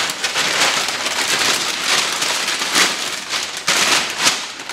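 A plastic packaging bag crinkling and rustling as a wiring harness is pulled out of it and handled, in a steady stream of crackles that dies away near the end.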